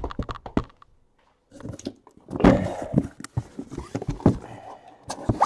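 Trading-card packs and boxes being handled on a table: a quick run of sharp clicks, a short pause, then rustling and thunks as packs are taken out of their boxes.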